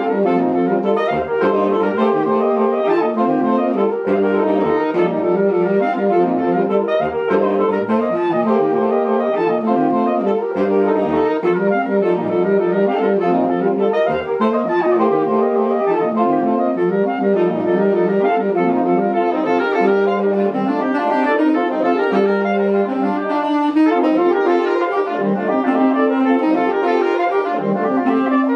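Saxophone quartet of soprano, alto, tenor and baritone saxophones playing together in a continuous passage of quick repeated notes, steady in loudness.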